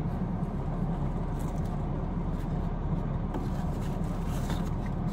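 Steady low hum inside a parked car's cabin, typical of the car running at idle, with a few faint rustles and clicks over it.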